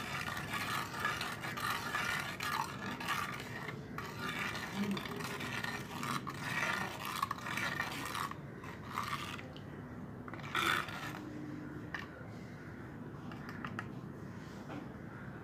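Steel spoon scraping and clinking against the inside of an unglazed clay pot as milk with a spoonful of curd is stirred, with a sharper clink about ten seconds in.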